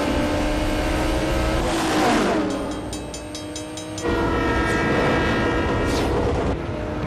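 Film sound of a Dodge Charger and a Toyota Supra racing, engines running hard, with a falling pass-by sweep about two seconds in. About four seconds in a diesel locomotive's horn sounds a steady multi-tone chord for two to three seconds as the freight train reaches the crossing.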